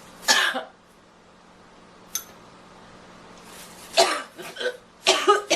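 A girl coughing: one harsh cough just after the start, then a fit of several coughs from about four seconds in. A light click sounds about two seconds in.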